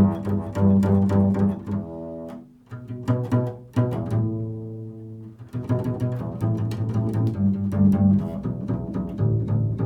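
Improvised solo music on a low-pitched string instrument: runs of quick plucked notes that ring on, pausing briefly twice.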